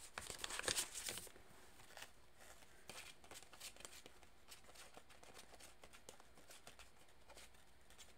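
A deck of tarot cards being shuffled by hand. There is a quick run of crisp card flicks and rustles in the first second or so, then sparser, quieter card slides and taps.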